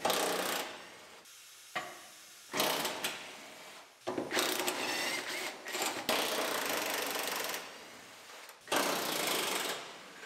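Impact wrench running in about five rattling runs of one to two seconds each, spinning out the cab's body mount bolts.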